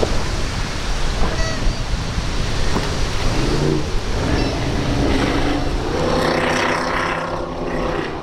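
Cigarette go-fast boat's engines running hard as it crosses rough inlet swells, over the rush of surf and wind on the microphone; the engine note swells and bends in pitch around six to seven and a half seconds in as the boat comes close.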